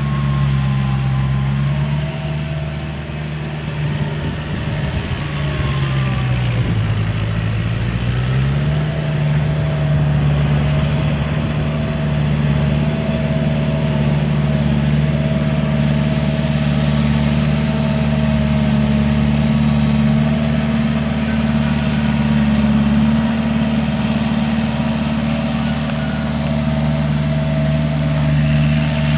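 Kubota L5018 tractor's diesel engine running steadily while it drives a rear rotary tiller through paddy soil. About six seconds in the engine note sags for a couple of seconds, then climbs back and holds steady.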